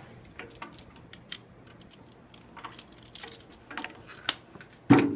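Light scattered clicks and ticks of snare-drum hardware being handled as the snare wires are fitted to the strainer, with one louder knock against the drum near the end that rings briefly.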